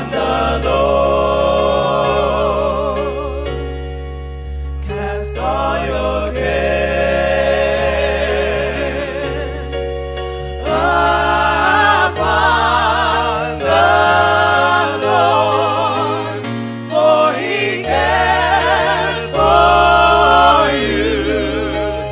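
Gospel music: singers holding long notes with vibrato over electronic keyboard accompaniment and a steady bass, in long phrases with short breaks between them.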